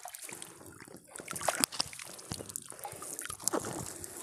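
Water trickling and dripping off a wet nylon cast net as it is hauled in and handled by hand, with irregular small splashes and the rustle of the mesh.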